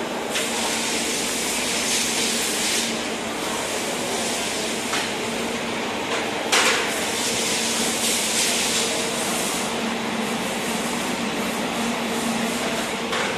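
Steady running noise of surface-mount PCB assembly line machines: a hiss with a low steady hum, broken by a few sharp clicks and one short louder burst about six and a half seconds in.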